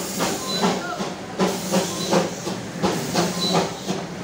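Darjeeling Himalayan Railway B-class steam locomotive chuffing and hissing, with regular exhaust beats about three a second over a steady rush of escaping steam.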